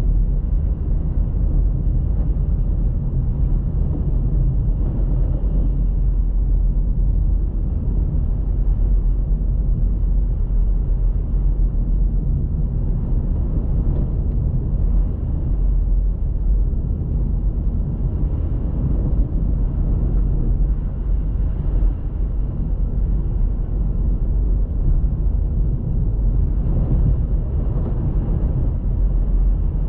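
A car driving steadily, with an even low rumble of road and engine noise that keeps the same level throughout.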